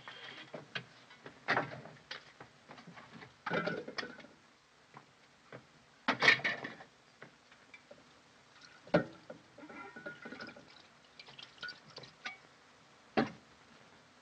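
Irregular knocks and clatter of kitchen utensils and tin cans being handled and packed, with louder clanks a little after six seconds and again near the end, over a faint steady hum from the old film soundtrack.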